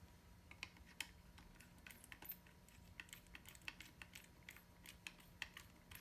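Faint, irregular small clicks and taps, a few a second, as a small screwdriver and fingers work the screw terminals of a Kitronik motor driver board on a plastic toy RC car chassis, fastening the motor wires.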